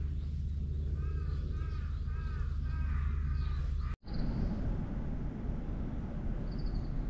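A bird calls repeatedly, a quick run of arched calls, over a steady low rumble. The sound cuts off abruptly about four seconds in, giving way to outdoor background noise with a couple of brief high chirps.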